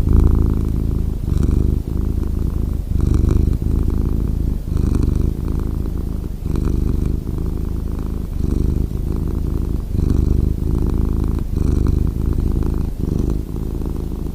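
Domestic cat purring, a low rumble that swells and dips with each breath about every second and a half.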